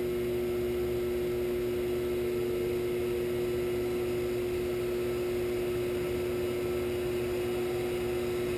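Leeson 3/4 HP DC motor, belt-driving a Shopsmith 10ER headstock from a KBMD-240D speed controller, running in low range with a steady hum as the speed is turned up from about 550 to 950 RPM. It runs quiet and smooth.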